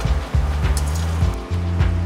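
Background music with a stepping bass line and occasional percussion hits.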